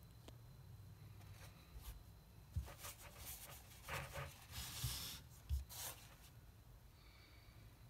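Thin cloth rustling and rubbing as it is handled by hand, in several short bursts from about two and a half to six seconds in, with a few soft knocks among them.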